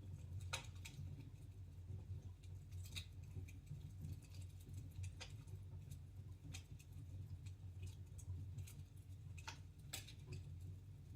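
Wood fire in a fireplace crackling quietly: irregular sharp snaps and pops every second or two over a low, steady rumble of the burning fire.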